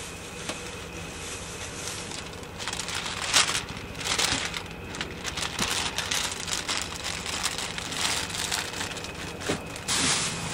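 Thin plastic bags rustling and crinkling in irregular bursts as they are handled and opened.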